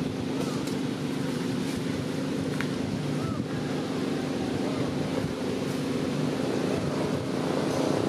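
A steady low motor drone holding one even pitch, with a rumble of wind on the microphone.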